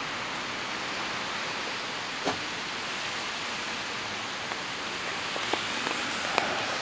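Steady hiss of city traffic on a wet, slushy street, with a few short clicks.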